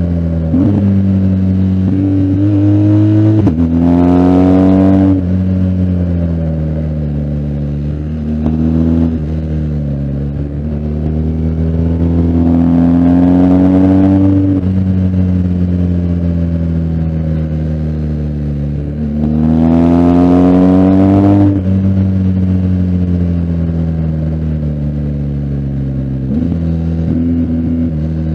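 BMW R1250GS Adventure's boxer twin engine under hard acceleration three times, about four seconds in, midway, and about three-quarters through. Each time the pitch climbs, then sinks as the throttle is rolled off, with short breaks in the note at gear changes.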